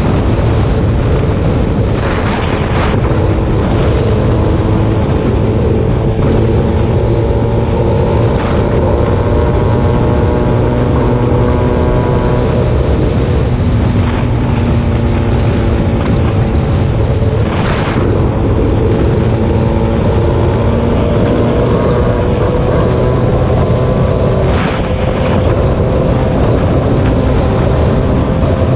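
Vehicle engine running steadily on the road, heard from on board with wind noise over the microphone. The engine pitch drifts slowly up and down, and a few brief rushes of noise pass through.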